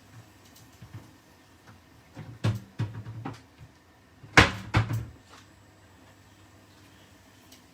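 Kitchen cupboard door being opened and shut, with clattering knocks in two short bursts; the loudest is a sharp bang about four and a half seconds in.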